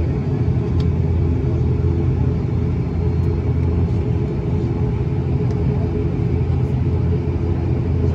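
Steady drone of an ATR 72-600's twin turboprop engines and propellers heard inside the passenger cabin: a low, even hum with several level tones that hold their pitch.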